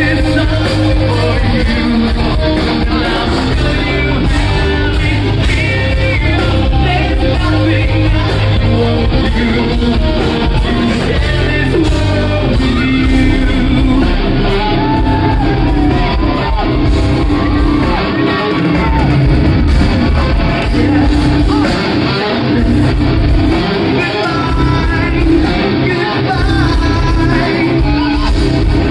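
A rock band playing loud live: electric guitars, bass and drums with a singer over them, heard from within the audience.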